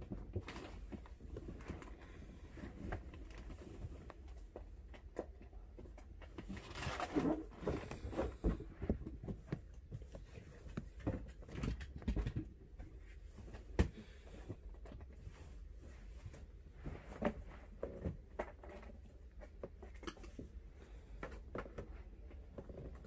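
Scattered rustling, light knocks and clicks of someone moving objects around by hand while searching, with a sharper tap about fourteen seconds in, over a low steady hum.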